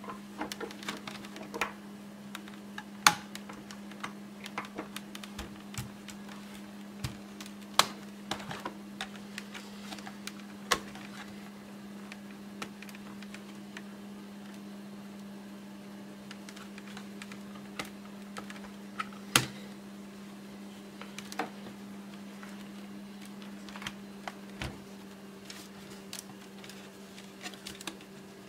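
Scattered plastic clicks and snaps as an HP 625 laptop's case is handled and pried at to open it, a few sharper knocks among them. A steady low hum runs underneath.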